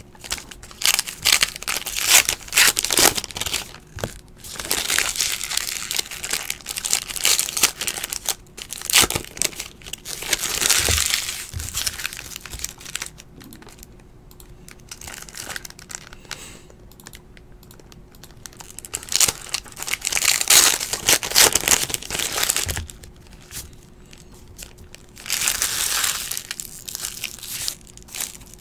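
Wrapper of a Topps Heritage Baseball card pack crinkling and tearing as it is worked open by hand, in several bursts with quieter pauses between.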